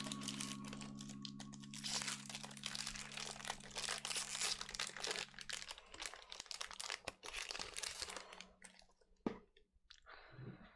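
Foil Pokémon booster pack wrapper being torn open and crinkled in the hands, a dense crackling that stops about eight and a half seconds in, followed by a single sharp click.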